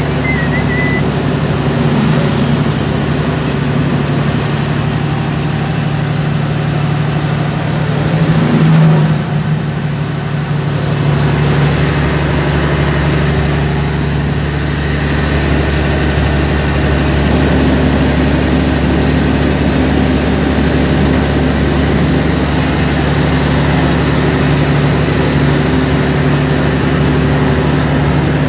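Kenworth T800 tractor-trailer's Cummins ISX15 diesel engine running steadily, with a thin high whistle over it. About nine seconds in, the sound swells briefly, then dips and settles again.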